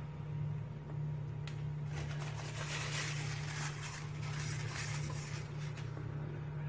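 A steady low hum, with faint crackling and rustling from about two seconds in to near the end.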